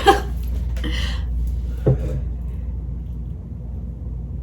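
Steady low hum, with a short breathy exhale about a second in.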